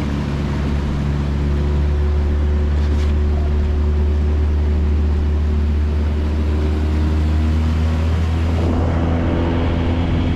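Motorboat engine running steadily under way, with water and wind rush over it; its note shifts near the end.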